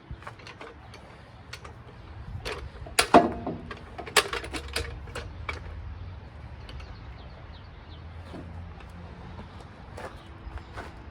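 Metal clanks and clinks of steel parts and bolts being handled while a counterweight is fitted to a mini skid steer. The knocks are scattered and ring briefly, with the loudest about three seconds in and another about a second later.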